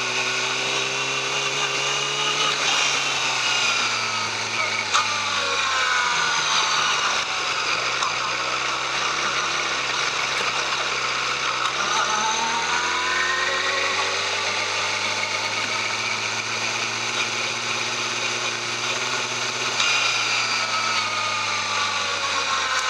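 Yamaha YZF-R6 inline-four engine on its stock exhaust, running continuously under changing revs. The pitch falls over the first few seconds, holds low, then rises steadily through the middle before dropping sharply near the end.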